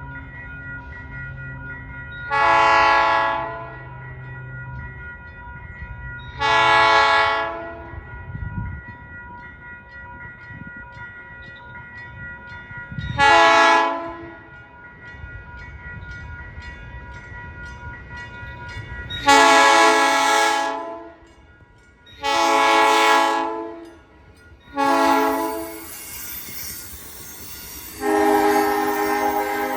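South Shore Line electric commuter train's horn sounding a chord in repeated blasts: one about 2 s in, one about 7 s in, a short one about 13 s in, then four close together in the second half. Near the end the rushing noise of the train passing builds up.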